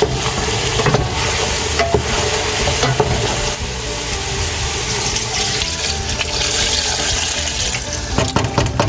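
Pork pieces sizzling in a stainless steel pot as a wooden spoon stirs them, knocking against the pot every second or so. Near the end, water poured in from a jug splashes into the pot.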